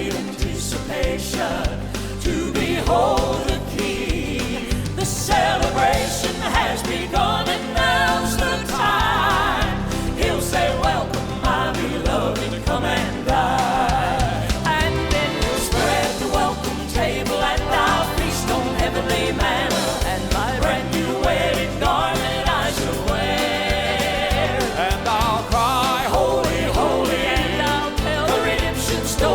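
Southern gospel song, a vocal group singing over band accompaniment.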